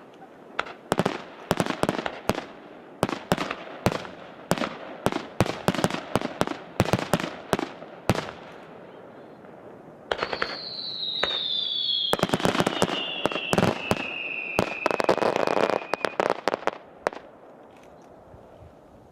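Fireworks going off in a rapid series of sharp bangs and crackles. About ten seconds in, a louder volley adds several whistling shells, whose whistles fall slowly in pitch together, before the display dies down near the end.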